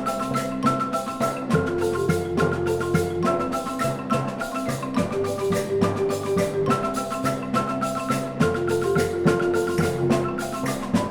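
Background music: a mallet-percussion melody, like marimba or xylophone, over a steady beat of short struck notes.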